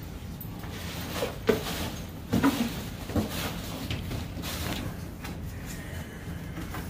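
Cardboard reel boxes being handled and set down on a counter: scattered knocks, bumps and rustling, sharpest about a second and a half in and again around two and a half seconds in.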